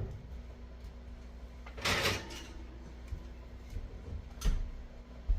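Kitchen handling sounds: a short sliding scrape about two seconds in, then two brief knocks near the end.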